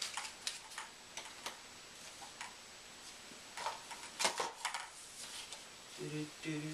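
Scattered light clicks and knocks of hard plastic KFO leg braces and their straps being handled as a leg is worked into one, with a quick cluster of knocks about four seconds in. A low hum from a person's voice starts near the end.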